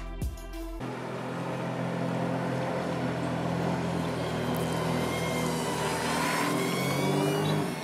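Background music cuts off under a second in. A motor then runs steadily over a rushing noise, with a thinner whine that rises and falls in pitch in the second half.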